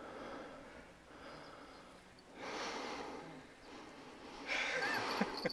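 A man's breath, two breathy snorts or exhales, the second louder, near the end.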